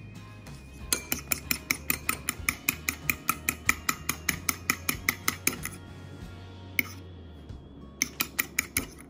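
Fork whisking egg whites in a ceramic bowl, clicking against the bowl about six times a second; it pauses past the middle and starts again near the end. Background music plays underneath.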